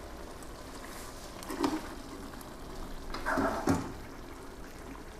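Fish curry bubbling gently in a pot on the stove, with a few short knocks of a utensil or lid on the pot about one and a half seconds in and again past the middle.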